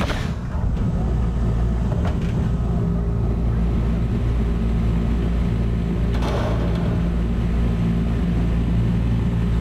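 Rooftop packaged air-conditioning unit running with a steady low hum of compressor and condenser fan, low on refrigerant on one circuit. A few brief handling clicks come over it, and a short rush of noise about six seconds in.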